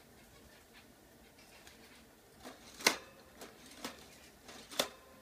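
A pet bird tapping and clicking against its small wire cage as it tries to get out: a few light taps and two sharp, louder clicks with a faint metallic ring, one about three seconds in and one near the end.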